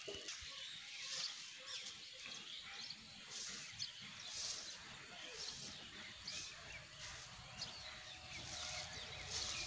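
A stiff stick broom swishing and splashing through shallow cow-dung wash spread on the ground, in irregular sweeping strokes. Birds chirp faintly in the background.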